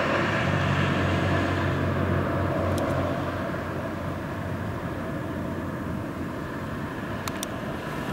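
Antonov An-124-100's four D-18T turbofans on approach: a steady low jet rumble that slowly fades. A couple of faint ticks are heard.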